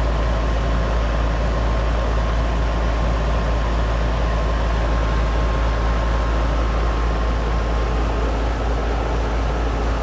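Rheem 5-ton R410A outdoor condensing unit running: compressor and condenser fan making a deep, steady hum.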